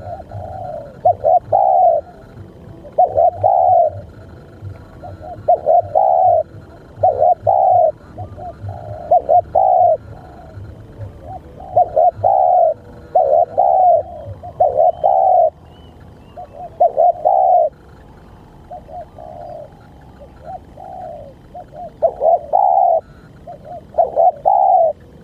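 Spotted dove cooing over and over, in short phrases of two or three coos repeated every second or two.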